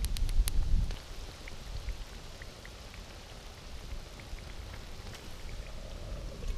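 Food sizzling over a wood fire: a steady hiss with small scattered crackles. A low rumble and a few knocks fill the first second.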